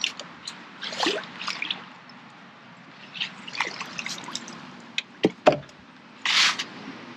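Water splashing and dripping, with scattered small clicks and two sharp knocks, and a short hissing splash a little after six seconds.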